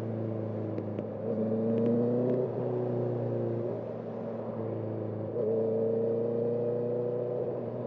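Motorcycle engine under hard acceleration, heard from the rider's position: the pitch climbs, drops sharply twice at gear changes, then climbs again louder near the end.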